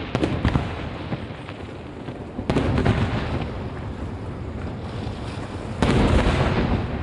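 Aerial firework shells bursting: a quick cluster of sharp pops at the start, then two heavy booms, about two and a half seconds and six seconds in, each trailing off in a long low rumble.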